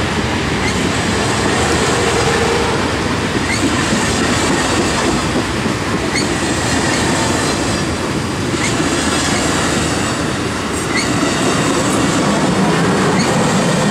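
Amtrak passenger train of bilevel Superliner cars rolling past close by: a steady rush of wheels on rail and moving air, with a wheel clack over the rail joints every two to three seconds.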